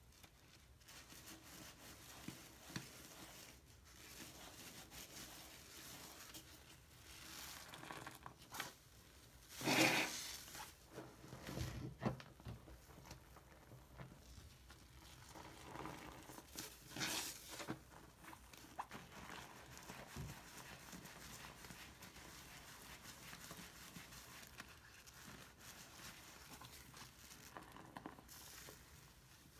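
Soapy sponge squeezed and kneaded by hand in a sink full of lather: wet squelching and crackling of foam in irregular bursts, the loudest about ten seconds in and again around seventeen seconds.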